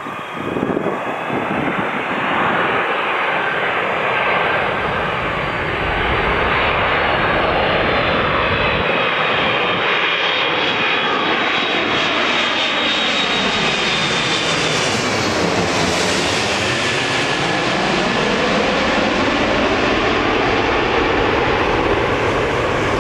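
Airbus A330-300 airliner on landing approach, passing low overhead. Its two turbofan engines give a steady high whine over a broad rush of noise, swelling over the first few seconds. The sound takes on a sweeping, phasing quality as the aircraft passes directly overhead about two-thirds of the way through.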